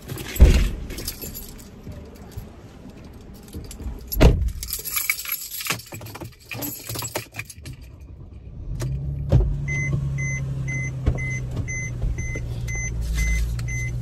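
Clicks and rattles of handling inside a car. About nine seconds in, the car's engine starts and idles with a steady low hum, while the car's warning chime beeps evenly about three times a second.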